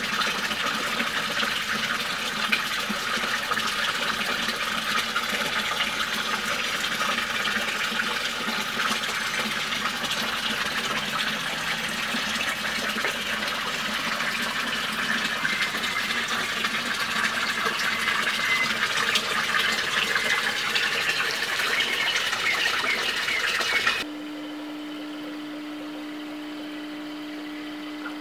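Steady rush of water running and splashing in a goldfish pond. About 24 seconds in it cuts to a quieter steady hum with one low tone.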